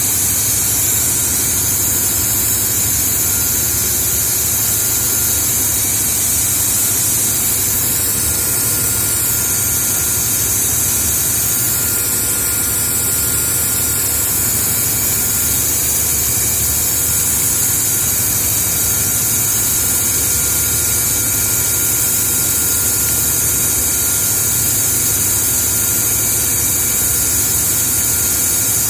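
Steady, loud, high hiss over a low machine hum: a jet blasting the oil cooler of a BOGE air compressor to clean it.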